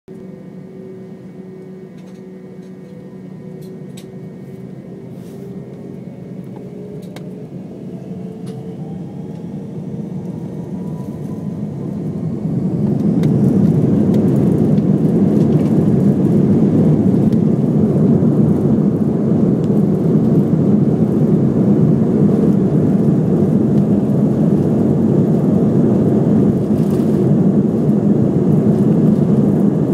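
Airbus A318 jet engines heard from the cabin over the wing, spooling up with a rising whine for about twelve seconds. They then settle into a loud, steady roar at takeoff thrust as the jet accelerates down the runway.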